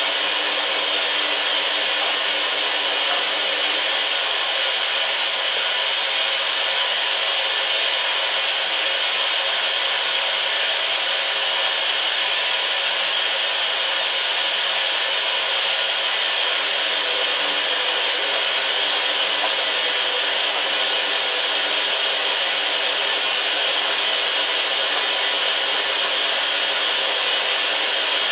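Hoover washing machine running, a steady, even rushing noise with faint steady tones under it that doesn't change.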